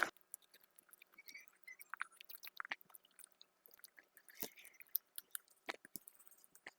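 Faint, close-miked eating sounds: soft wet chewing, lip smacks and small clicks of the mouth, scattered irregularly.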